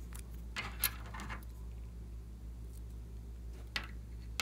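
A slime-filled plastic piping bag being handled: a short spell of plastic rustling and crinkling about half a second to a second and a half in, then two sharp clicks near the end.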